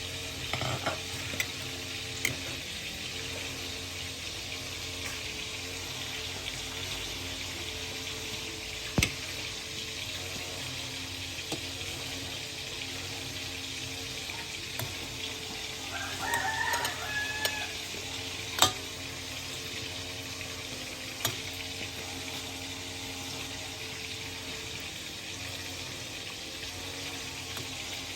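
A steady hiss with a few sharp knocks and clicks; about halfway through a rooster crows once.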